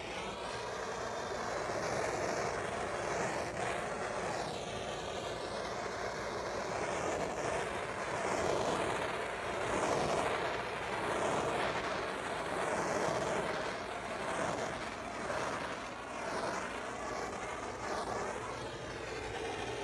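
Handheld gas torch flame hissing steadily as it is swept over freshly poured epoxy glaze coat to pop the air bubbles, swelling and easing as the flame moves.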